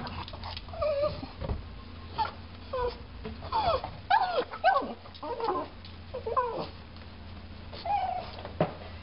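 Pug whining: a dozen or so short, high whimpers that slide up and down in pitch, with a steady low hum beneath.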